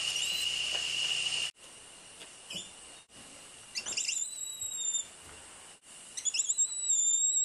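Spider monkeys giving their whinny calls: two high-pitched whistled calls, each opening with a wavering warble and then holding a level pitch for about a second, the first about four seconds in and the second near the end. Before them, a steady high hum with hiss cuts off suddenly.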